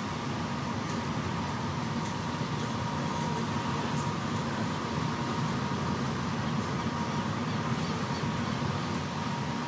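Steady rumble of a moving vehicle heard from inside its cabin, with a thin steady whine over it.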